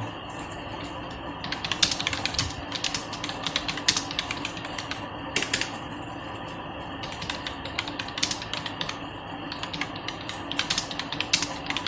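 Typing on a Circle C23 Performer wired keyboard: runs of quick key clicks that start about a second and a half in, pause for about a second midway, then carry on.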